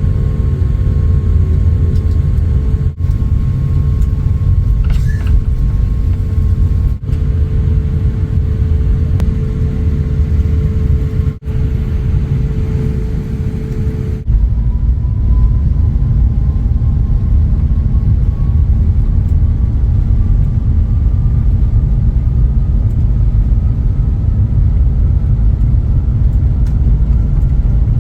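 Airbus A350-900 airliner heard from inside the cabin: a loud, steady low rumble of engines and airflow, broken by several short cuts. After a cut about halfway through, a faint whine rises slowly.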